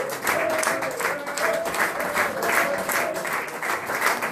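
Audience applauding, with a few voices calling out over the clapping.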